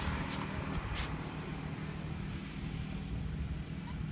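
A motor vehicle's engine running with a steady low hum, with a few light clicks in the first second.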